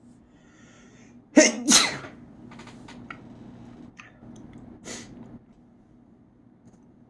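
A person sneezing: a breathy intake of breath, then a big, loud sneeze in two quick bursts about a second and a half in, followed by quieter breathing and one smaller burst of breath.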